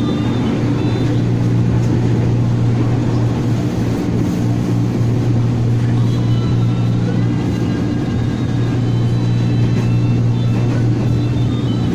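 Running noise of an ex-JR East Nambu Line 205 series electric train heard from inside the carriage at speed: a steady low hum with faint high tones that rise a little about six seconds in.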